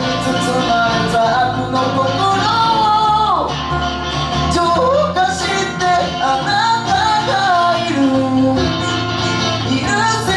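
Live band playing a pop-rock song: a young man sings the melody while strumming an acoustic guitar, backed by electric guitar and electric bass.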